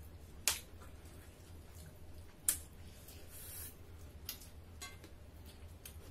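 Close-miked eating by hand: sharp mouth smacks and clicks as food is chewed and fingers are licked. The loudest come about half a second and two and a half seconds in, then lighter clicks and a brief hiss, over a steady low hum.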